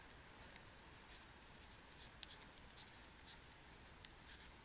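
Faint taps and light scratches of a stylus on a tablet as words are handwritten, over a low hiss.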